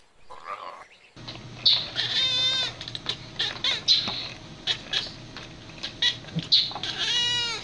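An animal calling twice with a quavering, wavering cry, about two seconds in and again near the end, over a steady low hum and scattered clicks.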